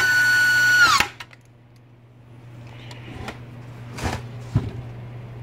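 Handheld inline power screwdriver driving a screw into a pump's housing cover: a steady high whine for about a second that drops in pitch as the motor winds down. Then a few light knocks and handling clatter as the pump is picked up.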